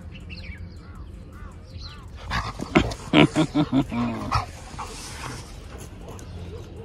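A dog barking and growling in one quick burst of about six barks, a couple of seconds in, as dogs scuffle. Faint birdsong chirps early on.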